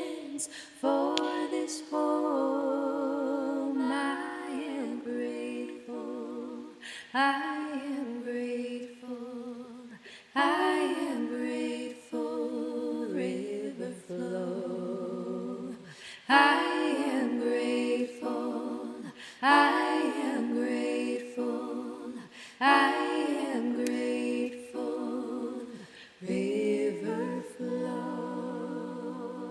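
A cappella singing: unaccompanied sung phrases with vibrato, starting afresh every few seconds, closing on a long held note near the end.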